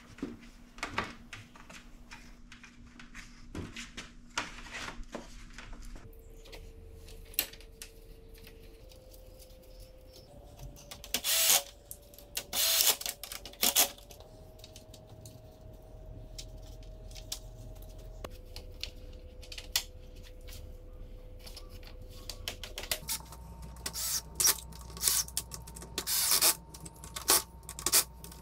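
Cordless drill driving screws to refasten a plastic bracket to a grille, in short bursts of about a second, a few near the middle and several more near the end, with clicks and knocks of plastic parts being handled in between.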